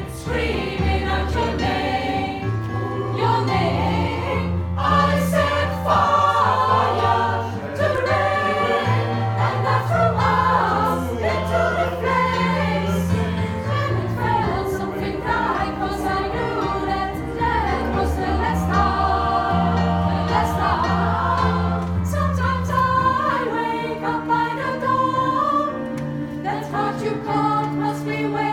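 A vocal group singing in harmony over a steady bass line, the chords changing every couple of seconds.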